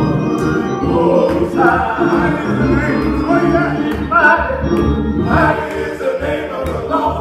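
Two men singing a gospel worship song at microphones, with instrumental accompaniment underneath.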